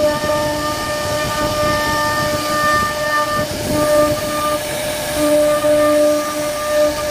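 1325 CNC router's spindle whining steadily as its bit carves a wooden door panel. A lower tone cuts in and out as the bit works, over the rough noise of the cut.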